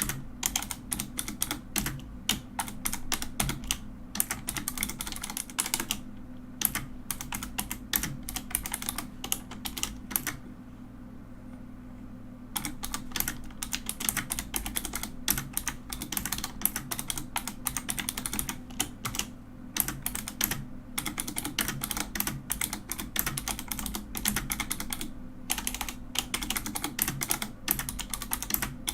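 Mechanical keyboard being typed on in fast, dense runs of key clacks, with a pause of about two seconds around the middle, over a steady low hum.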